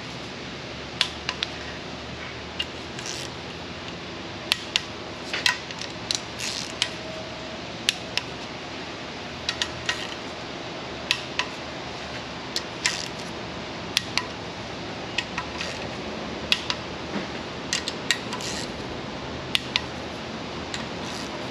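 Click-type torque wrench set to 106 inch-pounds clicking off on one oil pan bolt after another as the pan fasteners are brought to final torque. Sharp, irregular metallic clicks, about one or two a second, some in quick pairs, over a steady background hum.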